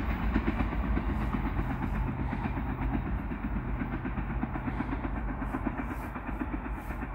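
Two CN diesel-electric freight locomotives, an SD75I and an SD70M-2, each with an EMD 710 sixteen-cylinder engine, running as the short train moves away along the track. A steady low engine drone with wheel noise on the rails, slowly fading.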